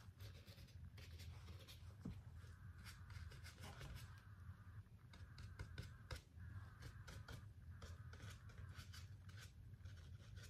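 Near silence with faint scratchy brush strokes and light taps as a brush works antique paste into the papier mâché surface, over a low steady hum.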